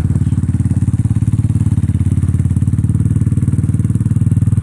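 Quad ATV engine running steadily with rapid, even exhaust pulses while towing a person on a rope through snow.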